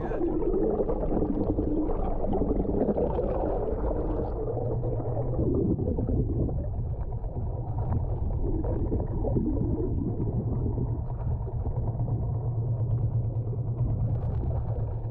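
Muffled underwater sound: the boat's outboard motor idling as a steady low rumble heard through the water, with bubbling and gurgling strongest in the first few seconds.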